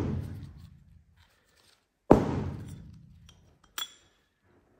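Metal parts and tools handled on a workbench: a loud thunk about two seconds in that dies away over about a second, then a sharp, ringing metallic clink near the end.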